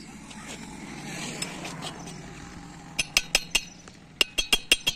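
Metal striking metal with a ringing clink, in two quick runs of taps: about five strikes starting about three seconds in, then after a short pause another rapid run of about six.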